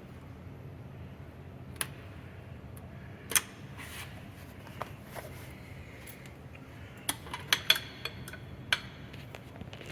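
Keys and the key lock of a fire alarm manual pull station being worked: sharp metallic clicks and small clatters, scattered at first and then bunched close together near the end, over a steady low hum.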